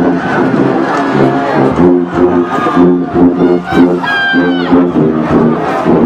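Marching band playing, with sousaphones close by blasting a repeated riff of short low notes and drums striking on the beat. A brief high held note cuts through about four seconds in.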